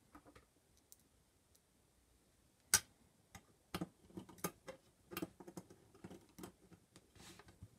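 Screwdriver and screw clicking and ticking against the sheet-metal cover of a Quick Disk drive as a screw is set and driven in. One sharp click comes about two and a half seconds in, the loudest, followed by a run of small irregular knocks.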